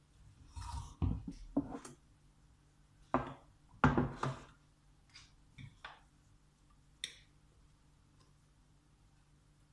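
Kitchen utensils and dishes knocking and scraping irregularly: two clusters of clatter in the first half, then a few lighter clicks.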